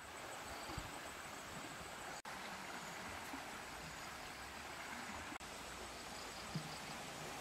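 Faint outdoor ambience: a steady even hiss with a thin, high, steady tone running through it. There is a soft tap about a second in and another near the end.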